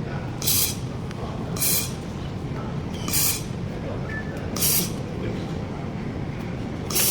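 Platform laser galvanometer spot welding machine at work on stainless steel: five short hissing bursts, one per weld cycle, about every second and a half, over a steady low machine hum.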